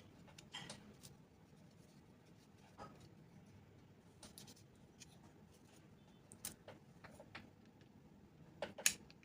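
Faint, scattered clicks and taps of small plastic and metal parts being handled as a mini PC's cooling fan is set back into place, with a sharper pair of clicks near the end.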